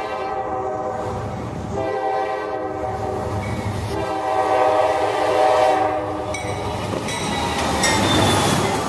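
Norfolk Southern freight locomotive's chord air horn sounding for a grade crossing: one blast ends, a short blast follows about two seconds in, then a long blast runs to about six seconds. The locomotive then passes close, its diesel engine and wheels on the rail loud near the end.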